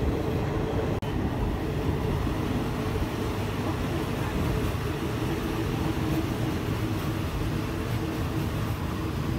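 Diesel passenger train of the State Railway of Thailand running along the track, a steady rumble of wheels and carriage with a low drone, heard through an open carriage window. The sound breaks off for an instant about a second in.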